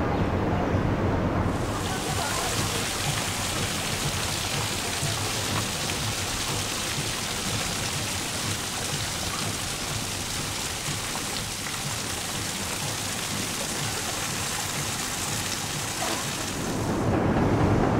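Steady rushing hiss of water, starting about a second and a half in and stopping shortly before the end.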